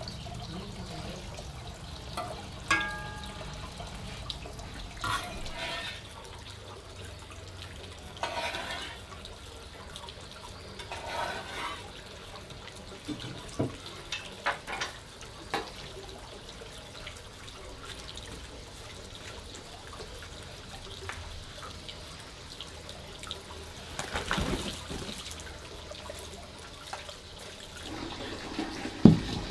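Water splashing and running in short irregular bursts over a steady low hum, with a few light knocks.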